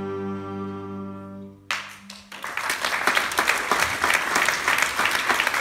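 A small chamber ensemble's final held chord, with a cello among the instruments, fades away, and audience applause breaks out about two seconds in and grows to fill the rest.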